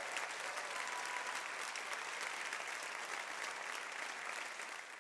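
Audience applauding steadily, fading down near the end.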